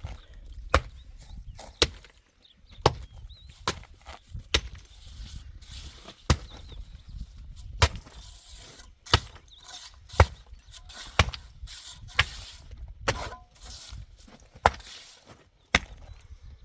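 A hand tool strikes a hard material with repeated sharp blows, roughly one a second and somewhat irregular, as in chopping or chipping at masonry during building work.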